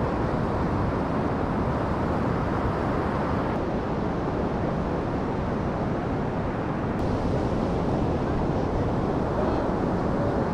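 Steady wind rumbling on the microphone over the wash of breaking surf.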